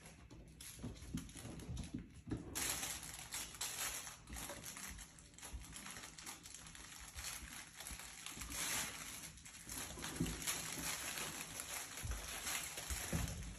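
Mini goldendoodle puppies playing among plush toys: scattered light clicks and scrabbling of paws on the hard floor, with rustling of the toys that grows busier a few seconds in.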